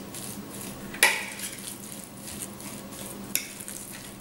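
A utensil mixing ground-beef stuffing in a glass bowl, with two sharp clinks of the utensil striking the glass: a loud one about a second in and a lighter one near the end.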